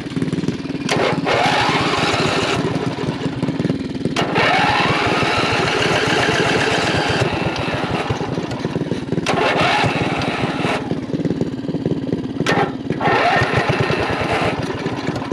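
Small single-cylinder mini bike engine running, revved up in four rising bursts and dropping back between them.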